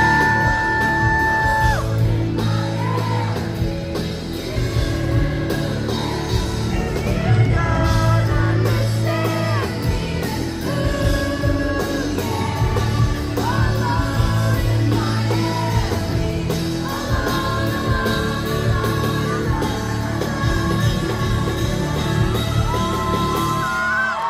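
Live pop-rock band with electric guitars, drums and keyboards playing while a woman sings lead, recorded from within the crowd in a large hall. The band stops right at the end.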